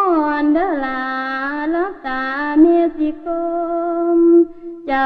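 A single voice singing long held notes of a melody, with a short break near the end.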